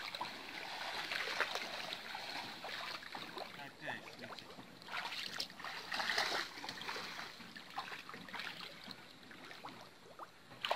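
Shallow pond water splashing and sloshing as people wade through it dragging a fine-mesh net, with irregular splashes that bunch up about halfway through.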